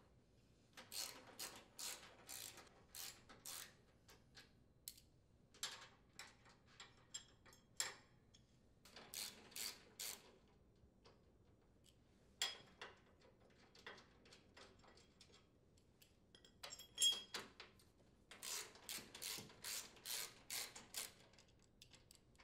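Faint clicking of a socket ratchet's pawl, heard in several short runs with pauses between, as it backs out the steering plate assembly mounting bolts on a riding mower.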